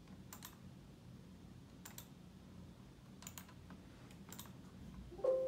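Computer clicks, four quick double clicks roughly a second or so apart, over a low steady hum. Near the end a sudden ringing tone starts, louder than anything before it, and fades slowly.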